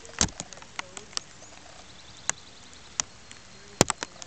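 Raindrops tapping close by in irregular sharp taps, a few a second over a low steady hiss; the loudest taps come about a quarter-second in and near the end.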